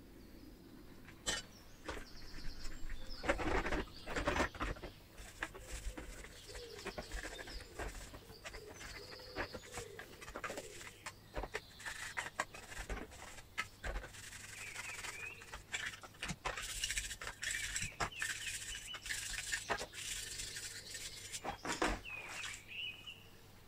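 Stove parts being handled and scrubbed by hand in a sink of soapy water: scattered knocks and clicks with rubbing, and a few short high squeaks.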